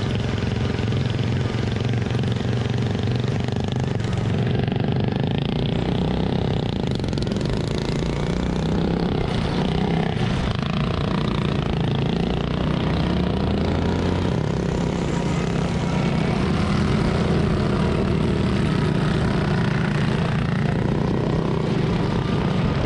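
Single-cylinder racing lawn tractor engines running hard, their pitch wavering slightly as the throttle changes.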